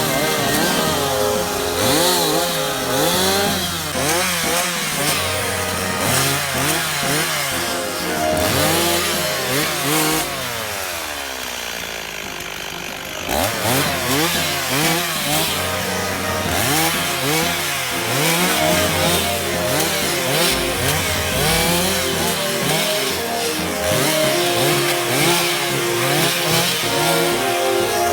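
Two-stroke chainsaw revved up and down in quick repeated bursts under load. About ten seconds in, the revs sink and it quietens toward idle. A few seconds later it revs up hard again and carries on in short bursts.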